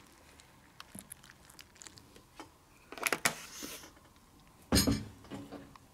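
Quiet tabletop handling around a cereal bowl: a few light clicks, a sharper clatter about three seconds in, and a heavier thump nearly five seconds in.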